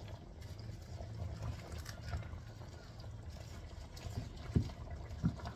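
Two wooden spoons stirring and turning cabbage leaves in a steel wok, with two light knocks of a spoon against the pan near the end, over a steady low hum.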